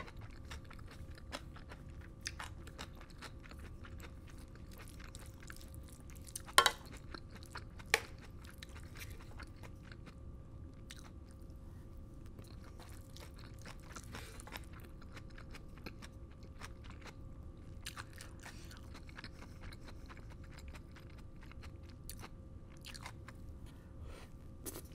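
Close-miked chewing of a mouthful of black bean sauce fried rice, with small crunches and wet mouth clicks. Two sharper clicks come about six and a half and eight seconds in, over a faint steady hum.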